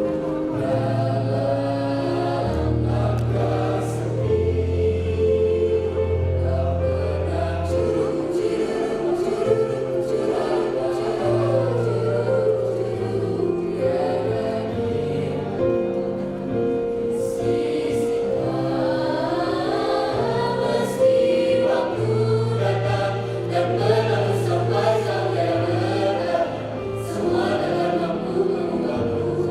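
A choir singing in parts, with long held low notes beneath the voices.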